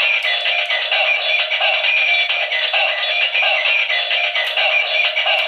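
Bandai Gabutyra de Carnival electronic toy gun playing its recorded transformation song and sung voice through its small built-in speaker. The sound is tinny and has no bass, with a steady beat.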